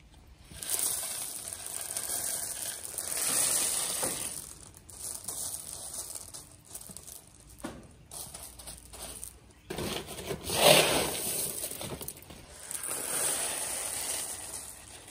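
Expanded clay pebbles poured from a plastic pot into a grow bed, rattling and trickling in several pours, the loudest about eleven seconds in.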